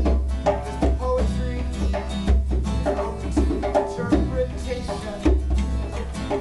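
Live acoustic jam: a strummed acoustic guitar, a djembe-style hand drum beaten in a steady rhythm, and an upright bass holding low notes underneath.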